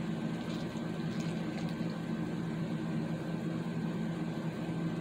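Steady low hum of a running motor or appliance, with a few faint ticks in the first couple of seconds.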